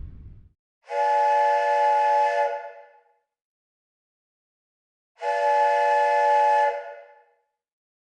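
Steam whistle blowing two long blasts, about two seconds each and a couple of seconds apart, several tones sounding together as a chord that trails off at the end of each blast.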